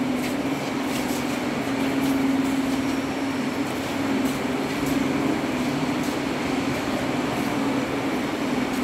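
Steady mechanical hum with a constant hiss over it, the running noise of a large hall's ventilation or air-conditioning.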